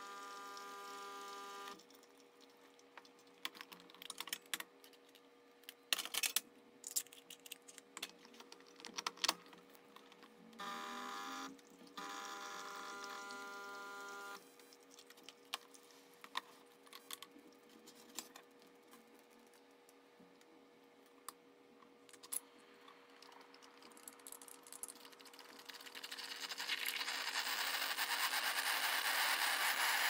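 Scattered clicks and knocks as a BlitzWolf BW-CMM2 espresso machine is handled and its portafilter is fitted. About 25 seconds in, the machine's steam wand starts hissing into a cup of water, growing louder and ending as the loudest sound.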